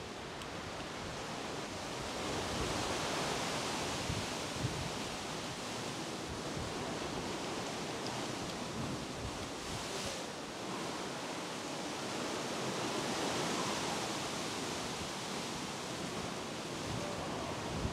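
Ocean surf, a steady rush of breaking waves that swells louder about three seconds in and again around thirteen seconds.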